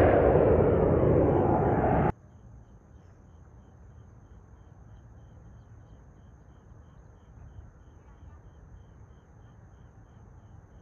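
Airplane engine noise, a loud steady rush, that cuts off abruptly about two seconds in. After it, faint insect chirping, about three regular chirps a second, over a low distant hum.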